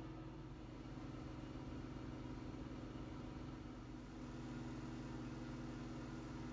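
Steady low machine hum with a few pitched lines, shifting slightly about four seconds in.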